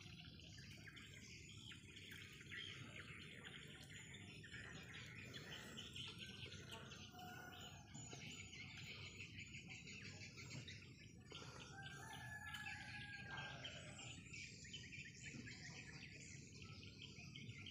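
Faint chirping of small birds: many short, rapid chirps overlapping throughout, over a low steady hum, with one longer held whistle-like note a little past the middle.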